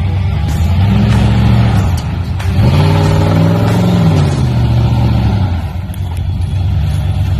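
347 stroker small-block Ford V8 in a Bronco II revving: the engine is blipped twice, a short rise and fall near the start and a bigger, longer one about two and a half seconds in, settling back to idle in between.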